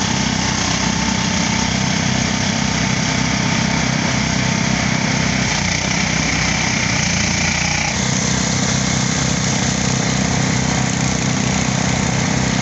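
Motorised rice thresher running steadily, its engine humming at a constant speed with the threshing drum turning. The tone shifts abruptly about eight seconds in.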